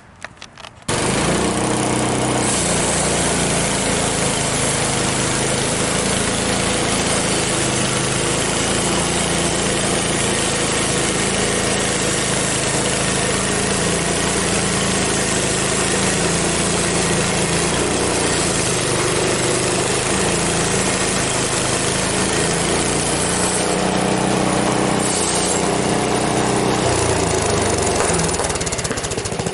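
Frontier OS23 portable bandsaw sawmill running steadily, its gas engine driving the band blade through an ash log. The sound comes in suddenly about a second in, and its tone shifts near the end.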